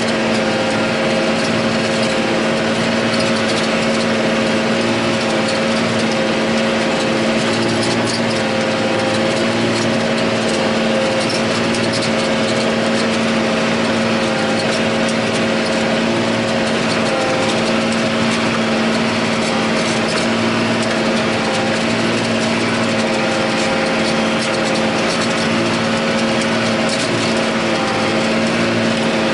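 John Deere 8100 tractor's six-cylinder diesel running steadily under load, pulling a disk ripper through the ground, a constant drone with light rattling ticks over it.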